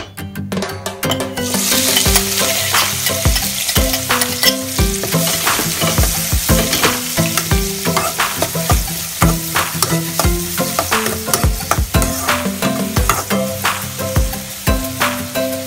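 Chopped onions frying in hot oil in an aluminium wok, sizzling from about a second and a half in. A metal spoon scrapes and clicks against the pan as it stirs them.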